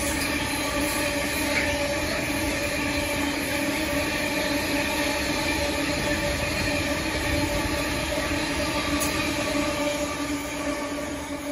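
Freight train of Freightliner hopper wagons rolling steadily past on the main line. Their wheels on the rails make an even rumble with a steady ringing note above it, easing slightly near the end.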